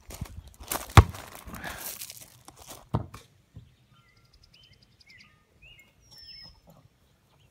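Rustling and scraping noise through the first three seconds, with a sharp knock about a second in and another about two seconds later, then quieter with birds chirping.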